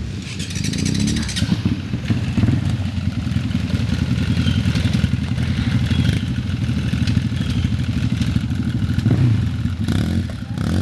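Off-road ATV engines running close by with a rapid steady throb, revving up about a second in and again near the end.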